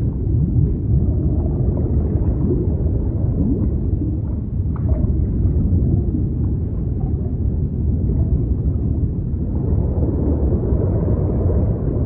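Underwater sea ambience: a steady deep rumble with gurgling, and faint gliding calls of marine life now and then.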